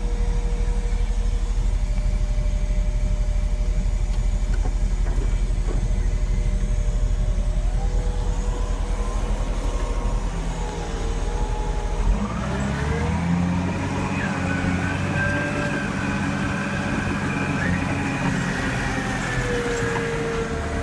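Diesel engine of a 2006 Volvo G930 motor grader running steadily. About twelve seconds in the engine note climbs and a higher whine rises over it and holds.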